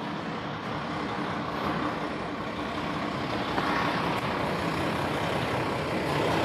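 Steady running noise of a moving road or rail vehicle, with a low, even hum under it.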